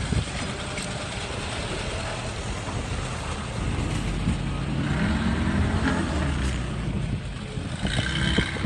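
Nekaf M38A1 Jeep's engine running under load as it drives off-road through grass and mud. The engine rises in pitch around the middle as it revs up, then settles as the Jeep pulls away.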